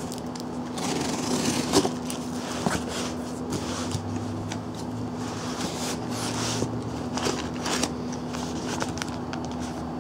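A cardboard shipping box being opened by hand: plastic wrap and tape pulled and cut, flaps pulled back, then packing paper rustling and crinkling as it is pushed aside. The sound comes as a string of short crackles and scrapes.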